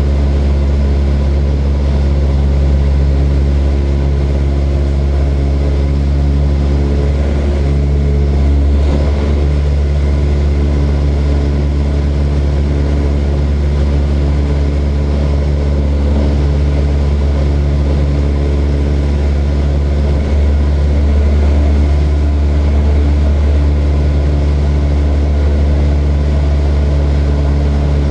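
Light propeller aircraft's piston engine and propeller running at a steady drone.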